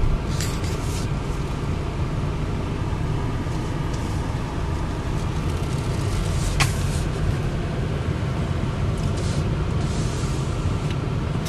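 Car cabin noise while driving: a steady low rumble of engine and tyres heard from inside the car. A single sharp click a little past halfway through.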